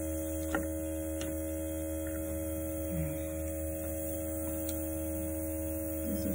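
A steady electrical hum made of several even tones, with a few faint clicks.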